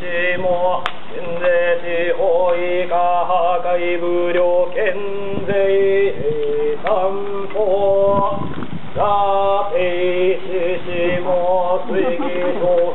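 Shugendō monks chanting mantras, a continuous chant of long held notes that step back and forth between two pitches.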